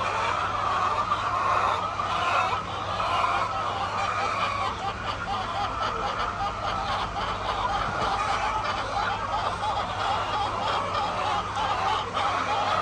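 A flock of hens clucking and calling together in a dense, continuous chorus, over a low steady hum.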